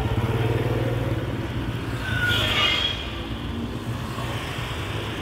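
Motorbike engine running close by, a steady low drone that is loudest at first and eases off. A brief high-pitched tone sounds about two seconds in.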